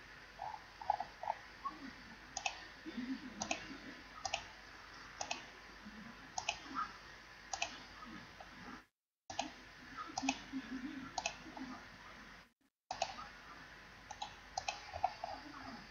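Computer mouse clicking: single sharp clicks, irregularly spaced, about one or two a second. The sound cuts out completely twice for a moment partway through.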